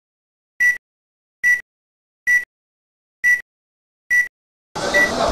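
Film countdown leader beeps. Six short, high beeps sound a little under a second apart. Near the end, a steady wash of background noise comes in under the last beep.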